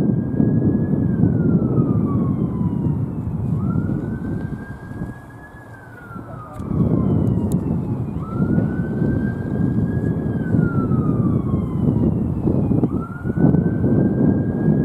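A siren wailing in a slow repeating cycle, each wail rising quickly, holding, then falling away over a couple of seconds, about every four to five seconds. Under it runs a loud low noise that drops away for a moment about five seconds in.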